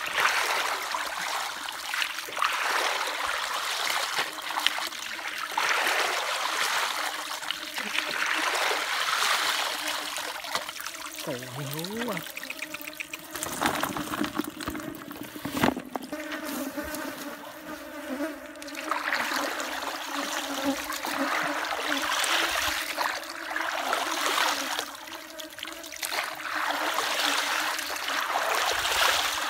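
Shallow muddy water in a drained rice field sloshing and trickling as hands and booted feet work through the mud, coming and going in uneven bursts. A steady faint hum lies underneath.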